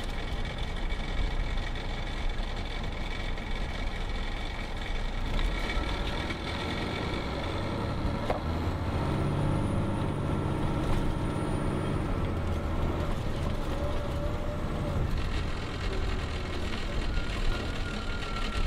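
Cabin sound of an MCI D4500 coach: its Detroit Diesel Series 60 engine and Allison B500R automatic transmission running with a steady low rumble. The engine note grows stronger for a few seconds midway.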